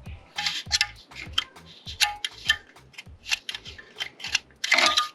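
Metal tools clicking and scraping against steel parts inside a 4L60E transmission case while working at a retaining ring, in quick irregular clicks with brief metallic ringing and a dense cluster near the end.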